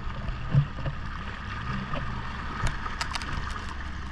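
Jet ski engine running at low speed: a steady low rumble with a mid-pitched hum. A string of sharp clicks sets in past halfway.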